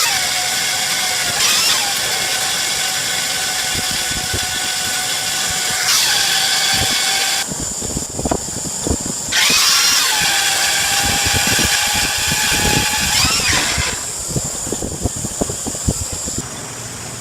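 Electric power tool motor running in two long bursts, a steady high whine that bends in pitch as it starts and stops, with scattered clicks and knocks of metal work in between and throughout.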